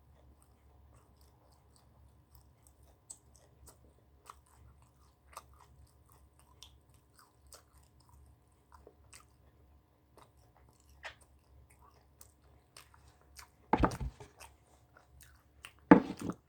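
A person chewing food close to the microphone, with soft scattered mouth clicks. Two much louder crunching sounds come near the end.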